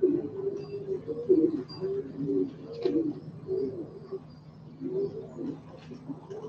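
Racing pigeons cooing, several low, wavering coos overlapping one another without a break.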